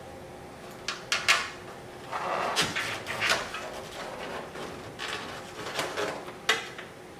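Handling noise of a screw and washer being worked up into the underside of a plastic rear bumper: a few sharp clicks about a second in, a stretch of scraping in the middle, and another click near the end.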